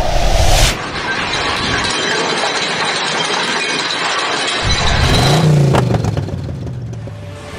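Steady rushing noise, wind buffeting an action camera's microphone. About five seconds in, a car engine rises in pitch and falls back, as heard from inside the car.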